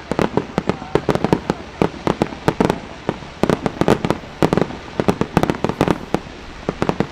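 Aerial fireworks bursting in a dense barrage, sharp bangs coming several times a second without a break.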